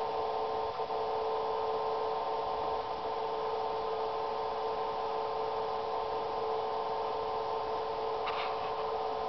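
A steady hum made of several held tones, unchanging throughout, with a faint click about a second in.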